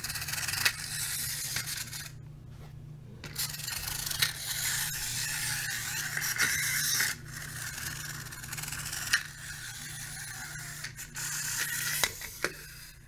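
Clockwork wind-up toy wheel loader's spring motor whirring as it runs, a dense high buzz that breaks off briefly a few times, with a few sharp clicks and knocks.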